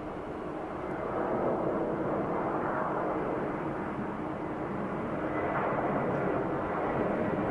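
Jet airliner's engines at climb thrust as it pulls away in a go-around: a steady, rushing engine noise that grows louder about a second in, then holds.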